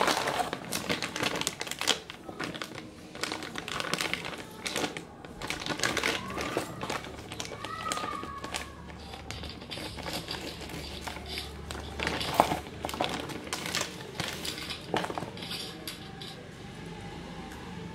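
Cardboard box and plastic packaging being handled: rustling and crinkling with scattered taps and clicks, busiest in the first half and thinning out toward the end.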